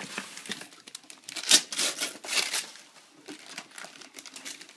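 Wrapping paper being torn and crinkled by hand as a gift is unwrapped. It comes in irregular rips and rustles, the loudest about a second and a half in.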